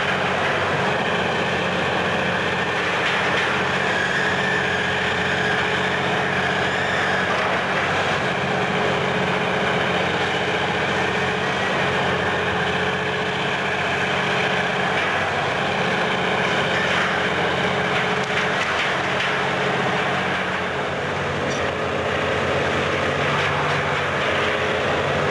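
Menck M260 cable crawler excavator's engine running steadily at a low, even pitch.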